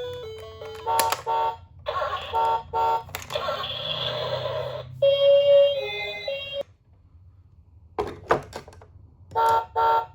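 Electronic toy sound effects: short pitched beeps, mostly in pairs, then a held tone that steps through a few notes. The beeps stop briefly and come back with a few clicks and a final pair of beeps.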